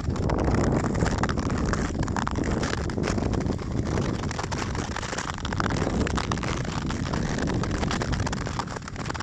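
Wind rushing over the microphone, mixed with the steady scraping and grinding of Nordic skate blades gliding over snow-dusted lake ice.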